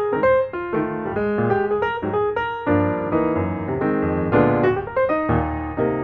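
Background piano music: a melody of quick notes over lower chords.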